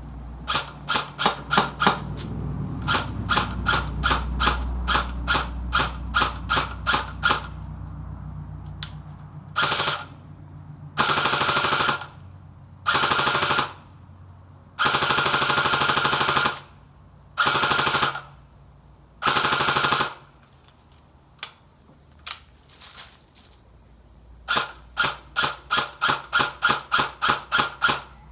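Airsoft AK-74U replica firing: a run of quick single shots, several a second, then six bursts of full-auto fire lasting about one to two seconds each, then more single shots near the end. A low rumble runs under the first shots.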